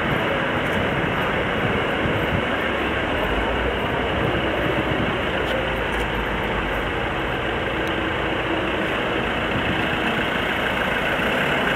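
Steady street din with vehicle engines running.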